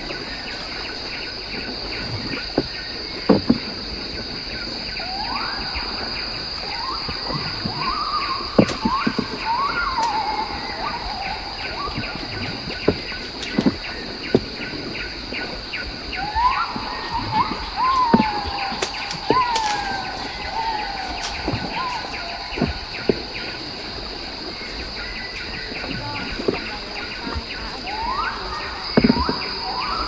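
Forest ambience: a steady high insect drone under a fast, evenly pulsing insect trill. A bird calls three times in runs of several sweeping whistled notes, and short sharp clicks come and go.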